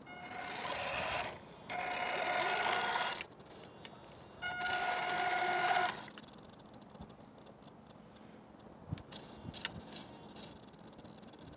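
Electric motor and gear drivetrain of a WLtoys A232 1/24-scale RC rally truck whining in three throttle bursts of a second or two each. A few sharp clicks follow near the end.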